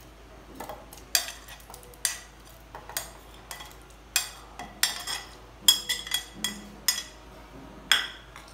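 A metal spoon scraping and clinking against a ceramic plate and the rim of a stainless-steel mixer-grinder jar as pieces of fresh coconut cream are pushed into the jar: irregular sharp clinks, about two a second. Near the end, a louder clack as the plate is set down.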